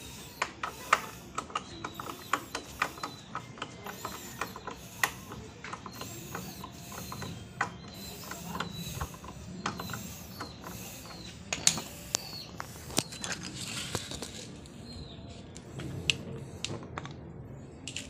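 Socket ratchet wrench clicking in short irregular runs, a few clicks a second, as it tightens the exhaust muffler's mounting bolt on a scooter. The clicks thin out in the last few seconds.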